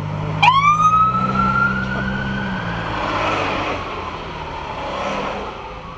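Emergency vehicle siren giving one rising wail: it sweeps up sharply about half a second in, keeps climbing slowly for about two seconds, then fades. It is heard from inside a car with the engine humming underneath, and traffic noise swells as a vehicle passes near the end.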